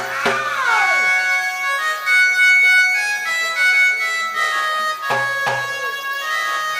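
Folk accompaniment music: a harmonium holding sustained reed notes, several at once, stepping from one pitch to another, with drum strokes at the start, the first one falling in pitch, and two more about five seconds in.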